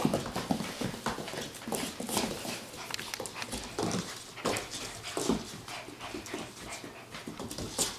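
Two eight-week-old standard poodle puppies tugging at a plush toy, giving short whimpers and puppy vocal noises in irregular bursts, with scuffles and clicks of paws on the wooden floor.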